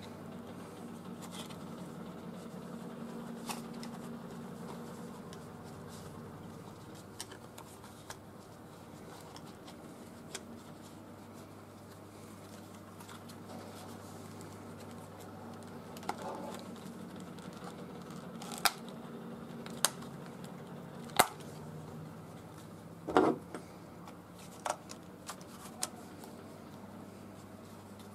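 A knife in its plastic sheath and a leather oversheath being handled: soft rustling with scattered sharp clicks and taps, the loudest several in the second half, over a steady low hum.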